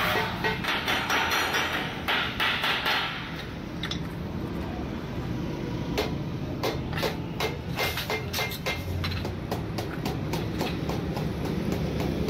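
Hand hammer striking the folded seam of a rolled galvanized steel sheet, backed by a flat steel bar. A quick run of taps comes in the first three seconds, then scattered single knocks.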